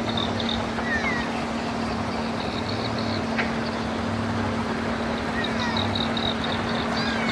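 Speedboat engine running steadily, a constant hum over a wash of noise. Short high chirps come and go above it.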